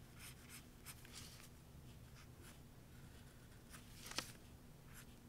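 Faint scratching of a mechanical pencil's lead on paper in short sketching strokes, with a small sharp tick about four seconds in.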